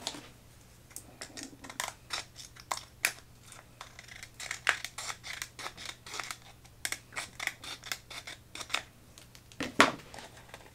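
Scissors snipping through a thin, clear plastic drinking cup: a long, irregular run of short cuts as the cup is trimmed roughly to shape, with the loudest snip near the end.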